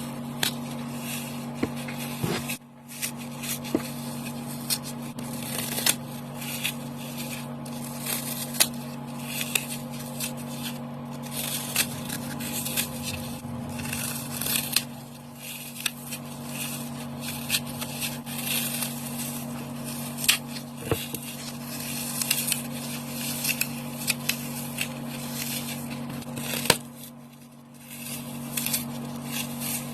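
Dry floral foam being crushed by hand, a dense run of crunching and crackling with sharper snaps here and there, pausing briefly twice.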